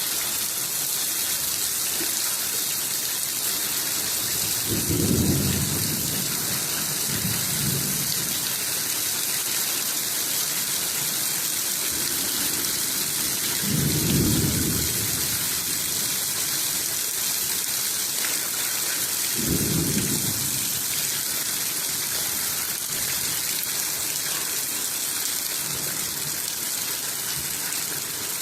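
Steady heavy rain, with thunder rumbling low three times and more faintly twice in between.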